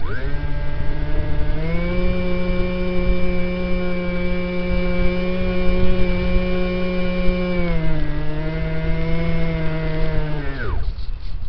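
RC plane's motor and propeller, heard from on board, throttled up: the whine comes on at the start, rises in pitch about two seconds in and holds steady, eases back near eight seconds, then is cut about a second before the end and falls away. Airflow rumbles on the microphone throughout.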